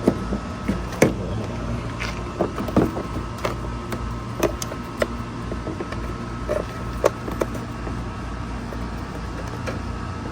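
Car parts being handled and set in place during bumper refitting: scattered clicks and light knocks, most in the first half, with one louder knock about seven seconds in, over a steady low hum.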